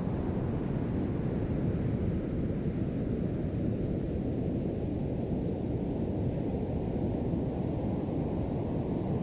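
Steady rush of ocean surf at a beach, mixed with wind rumbling on the microphone, heaviest in the low end with no distinct wave breaks.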